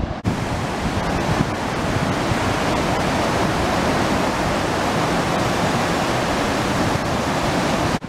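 Mohawk River swollen with floodwater rushing through rapids: a loud, steady rush of whitewater.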